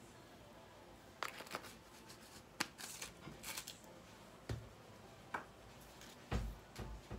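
Spice bottles handled over a skillet: scattered light clicks, small knocks and short rattles as jars are shaken, capped and set down.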